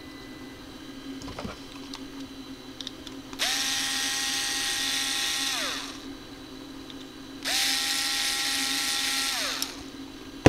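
A small electric power-tool motor runs in two bursts of about two seconds, each spinning up, holding a steady whine with a hiss, then winding down. A sharp click comes near the end.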